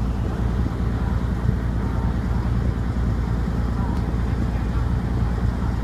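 Heavy diesel machinery running at a steady speed with a low, even drone, as the railcar is hoisted from the ship's hold.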